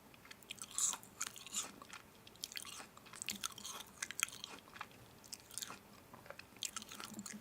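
Someone biting and chewing crunchy food close to the microphone: an irregular run of crisp crackles and clicks.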